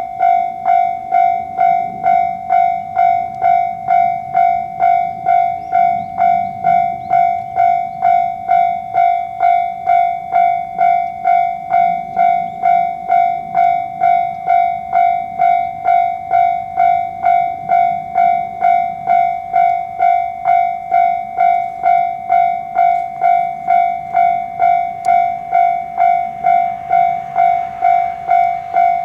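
Japanese level crossing's electronic warning bell ringing its steady 'kan-kan' alarm, a bit under two strikes a second, each strike a clear ringing tone, over a faint low rumble.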